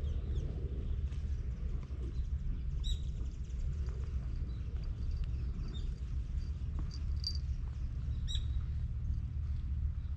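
Small birds chirping a few times in short high notes, about three seconds in and again in a cluster later on, over a steady low rumble.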